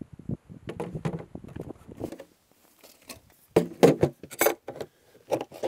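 Coleman retro cooler being handled and opened: a run of light clicks and knocks, then a cluster of sharp metallic clicks and clacks about three and a half seconds in as the metal latch is flipped and the lid swings open.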